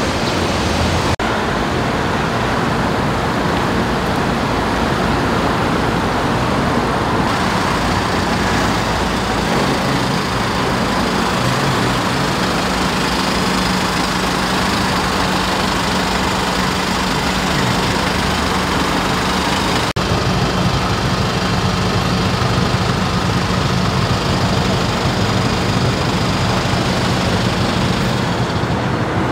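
Steady roadside traffic noise, with a low hum joining in after several seconds and fading near the end.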